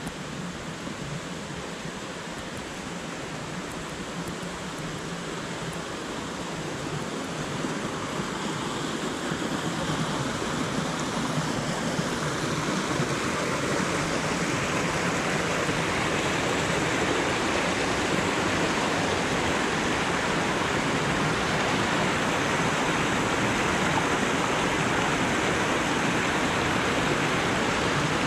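Mountain creek rushing and splashing over rocks in small cascades, a steady rush that grows louder over the first half as the creek comes closer, then holds steady.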